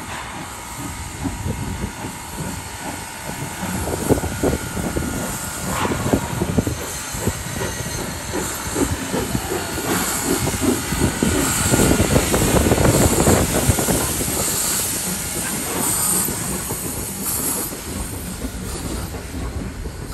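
Steam locomotive working slowly past with a regular rhythm of exhaust chuffs that grows louder as it approaches and is loudest about halfway through, with steam hissing as it goes by. Its passenger cars then roll past, wheels clacking on the rails.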